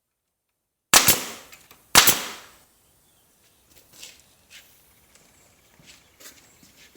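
Two loud, sharp bangs about a second apart, each ringing out for a moment, followed by faint scattered clicks and knocks.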